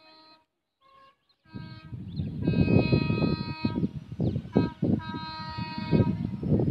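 Diesel locomotive's horn sounding several long blasts of about a second each as the train approaches. Under it is a loud, rough, uneven low rumble that starts about a second and a half in.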